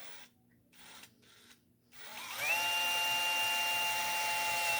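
A few short scraping sounds, then an electric power drill spins up about two seconds in and runs at a steady whine until it stops at the end.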